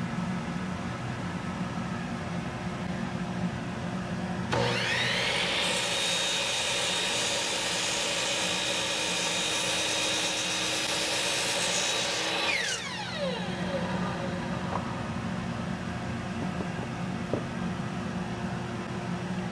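Ridgid miter saw motor spinning up with a rising whine, then its blade cutting through a thick wooden block for about six seconds. The motor is switched off after the cut and winds down with a falling whine. A steady low hum runs underneath, and a couple of light knocks follow.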